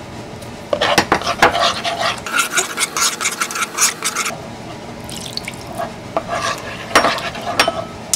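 Metal spoon stirring and scraping in a nonstick wok, working gochujang loose in soy sauce and plum syrup, with clinks of the spoon against the pan. It starts under a second in and pauses briefly about halfway.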